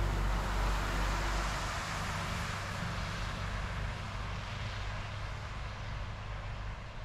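Road traffic on a snowy city street: a vehicle's engine and tyre noise, loudest at first and fading over the first few seconds, over a steady low rumble.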